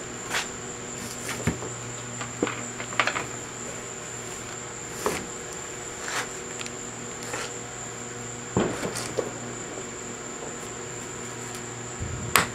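Intermittent clinks and knocks of metal lathe parts and hand tools being handled during disassembly of the saddle's cross-slide nut, with a louder knock about two-thirds of the way through. Under them run a steady high-pitched whine and a low hum.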